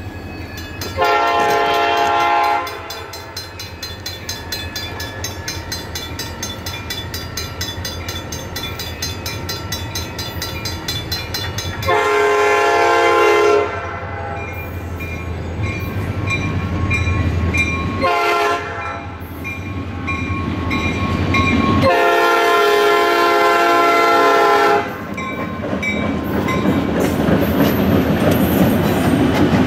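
Canadian National diesel locomotive sounding its multi-tone horn for a grade crossing in the standard long, long, short, long pattern, over the fast steady dinging of the crossing bell. In the last few seconds the locomotive reaches the crossing and its rumble and wheel noise grow louder.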